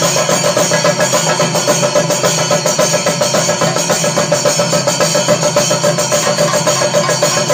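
Chenda ensemble playing thayambaka: many cylindrical drums beaten with sticks in a fast, dense, unbroken roll with an even pulse, as in the kalasam, the driving climax of the piece.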